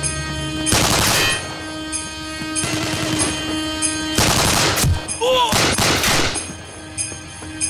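Three bursts of automatic weapon fire, about a second in, at about four seconds and just after five seconds, over a film score of sustained tones with a light regular tick.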